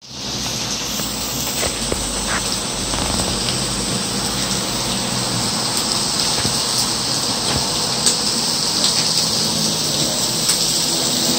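Pork neck slices sizzling on a tabletop grill pan: a steady hiss with light crackle, and a few faint clicks.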